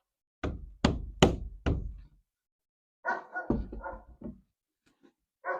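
Four quick knocks about half a second apart, blows driving a wooden board down into a window frame. A dog barks a few times in the second half.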